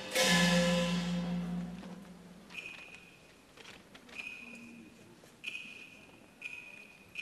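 Teochew opera percussion: a loud gong-and-cymbal crash with a low ringing hum that dies away over about two seconds, then a small high-pitched metal percussion instrument struck about five times, roughly once a second, each stroke ringing briefly.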